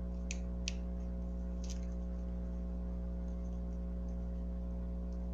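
Steady low electrical hum, with three faint short clicks in the first two seconds.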